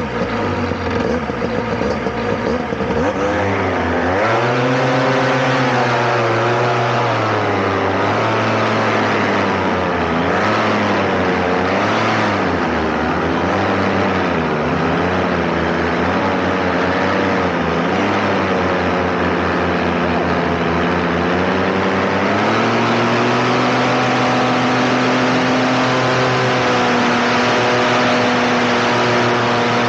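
Paramotor engine and propeller run up for takeoff. The engine speed wavers up and down with the throttle for many seconds, then climbs about two-thirds of the way in and holds steady at high power.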